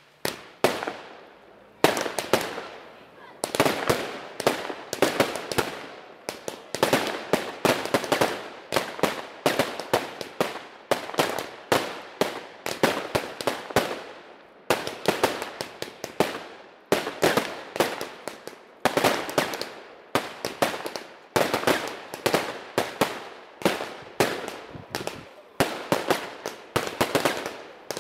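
Weco Bazooka fan-shaped firework battery firing, with rapid clusters of sharp cracks and crackling that come in groups every second or two, after a brief lull near the start.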